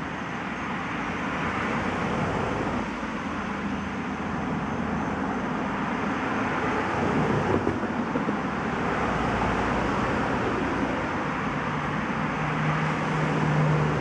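Distant road traffic: a steady rushing noise that swells slightly, with a low hum coming in near the end.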